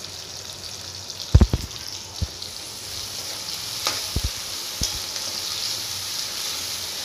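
Sliced onions and garlic sizzling gently in oil in a metal kadai on a low flame, while a spoon stirs them, knocking against the pan about four times, most sharply a little over a second in.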